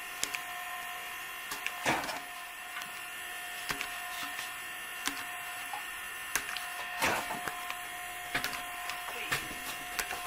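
A steady machine whine, likely a small motor running constantly, with scattered short clicks and knocks; the strongest knocks come about two and seven seconds in.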